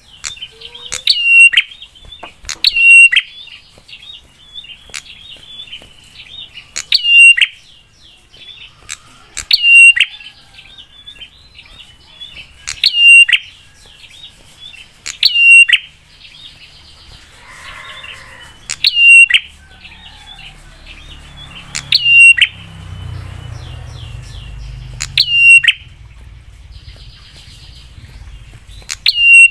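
A prinia gives loud, sharp, piercing call bursts about every three seconds, with softer twittering between them. This is the harsh, aggressive call used to provoke other prinias into answering.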